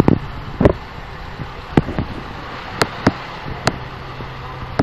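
Fire engine's diesel engine running at low speed with a steady low hum, broken by a series of sharp clicks and knocks at uneven intervals.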